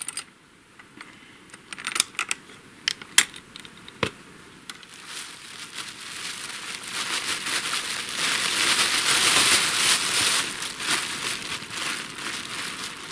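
Crinkling and rustling handling noise: a few sharp clicks and snaps in the first four seconds, then a hissing rustle that swells in the middle and eases off toward the end.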